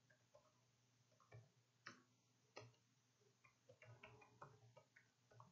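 Faint computer keyboard keystrokes: a few scattered taps, then a quicker run of clicks from about three and a half seconds in.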